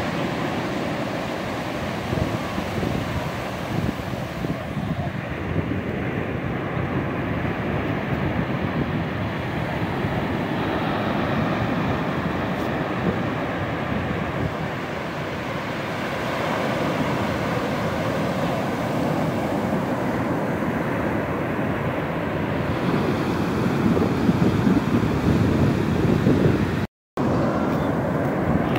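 Pacific surf breaking and washing up over the sand in a steady rush, with wind buffeting the microphone. The sound cuts out for a moment near the end.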